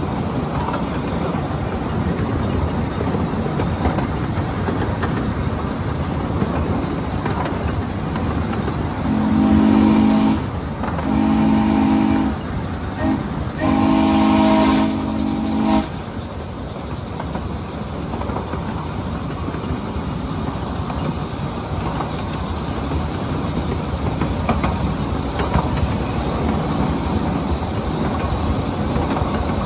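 Steam whistle of a ridable miniature live-steam locomotive, a chord of several tones blown partway through as two long blasts, a very short one and a final long one: the grade-crossing signal. Under it runs the steady rumble and clatter of the riding cars' wheels on the track.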